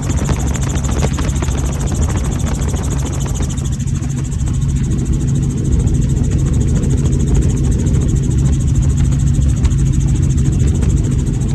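A small aircraft's engine running steadily: a low, constant drone with a fast, even chop.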